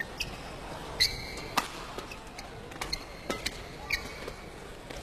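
Badminton rally: rackets striking the shuttlecock in a string of sharp cracks, about eight of them at uneven intervals, with short shoe squeaks on the court floor over low hall ambience.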